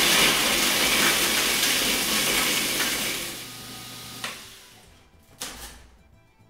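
Small electric food processor grinding Biscoff cookies into crumbs: loud grinding over a steady motor hum for about three seconds, fading and stopping about four seconds in. A short clatter near the end as the lid is lifted off.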